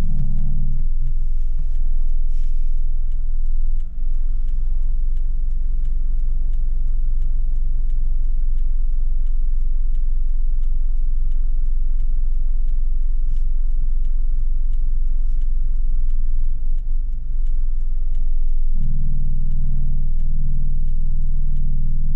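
Car engine running at low speed, heard from inside the cabin as a steady low rumble. About nineteen seconds in, the engine note becomes louder and steadier.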